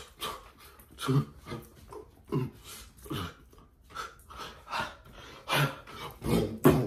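A person's short wordless vocal noises, huffs and grunts, coming in irregular bursts.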